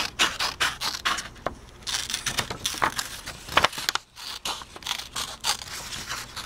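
Metal scissors cutting through a sheet of paper, a series of irregular snips as the blades work along a traced pattern line.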